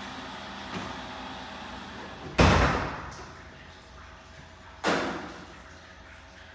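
A door slamming twice, about two and a half seconds apart, the first louder, each bang ringing on briefly in the room, over a steady machine hum.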